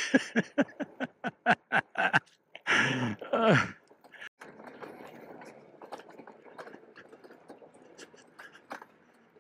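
A man laughing in quick short bursts, then a drawn-out vocal exclamation lasting about a second. After that, quieter steady rumbling trail noise from fat tyres rolling over dirt, with scattered crunches and clicks.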